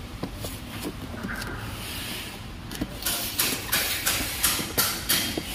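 Cardboard packaging rustling and scraping in a quick run of short strokes through the second half, with a few faint clicks before it, as a carton of glassware is handled and opened.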